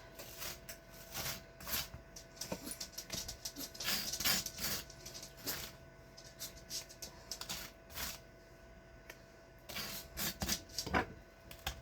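Scattered light clicks, taps and knocks of kitchen things being handled, busiest a few seconds in and again near the end, over a faint steady hum.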